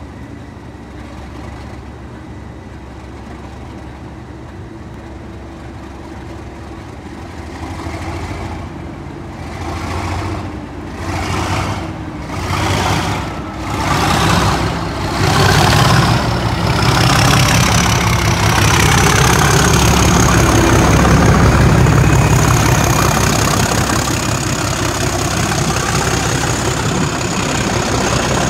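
Class 37 diesel locomotive's English Electric V12 engine idling, then opening up in a series of surges about eight seconds in and thrashing at full power from about halfway as it pulls its test train away. A steady high whistle from the turbocharger rides over the engine once it is working hard.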